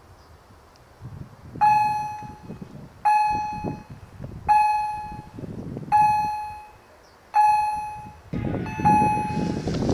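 Electronic bell of a level-crossing warning system (EHL S10 acoustic generators) striking about once every one and a half seconds, six times, each strike a clear ringing tone that dies away: the crossing warning an oncoming train. Near the end the rising rumble of the approaching electric train joins in.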